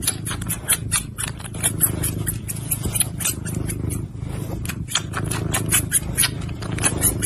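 Tabby kitten gnawing on a person's finger right at the microphone: rapid, irregular wet clicking and crunching of small teeth over a steady low rumble.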